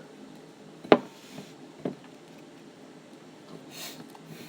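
Two sharp knocks about a second apart, then a soft rustle near the end, from handling slime in its bowl.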